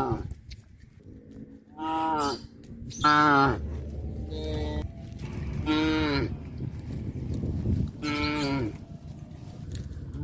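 Cows mooing: about five separate moos a second or two apart, each dropping in pitch as it ends, one of them fainter than the rest.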